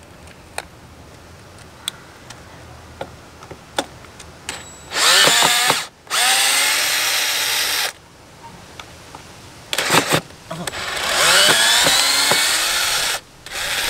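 Cordless drill/driver backing the screws out of a cleat on an RV's side wall, running in bursts. There are two runs of one to two seconds about five seconds in, a brief burst around ten seconds, and a longer run of about two and a half seconds near the end, whose whine rises as the motor spins up. Light clicks come before the first run.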